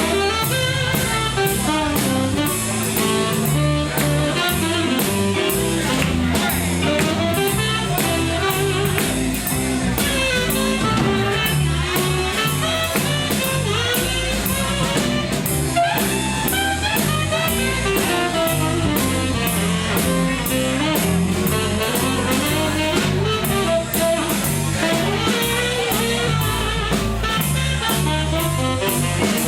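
Live band playing an instrumental blues-jazz passage with no vocals: a drum kit keeps a steady beat under a walking bass line and a wandering lead melody.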